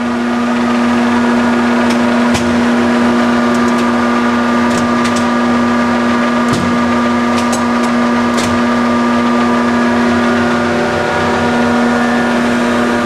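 Cincinnati Milacron 220-8 centerless grinder running: a loud, steady hum with a strong even tone and a row of overtones, with a few light clicks scattered through it.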